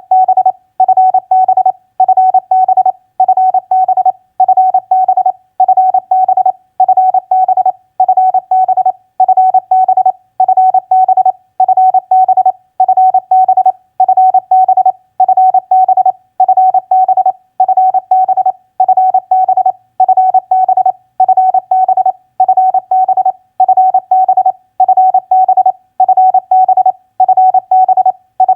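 Morse code practice tone sent at 28 words per minute: a single steady pitch keyed on and off in fast dits and dahs, in short groups of characters separated by brief pauses, spelling common contact abbreviations such as TU, FB and CUAGN.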